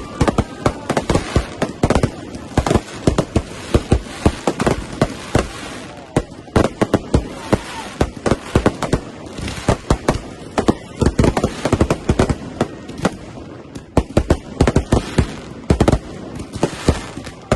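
Many fireworks and firecrackers going off at once, a dense, irregular barrage of bangs and crackles, thinning out briefly a few times before heavy flurries return.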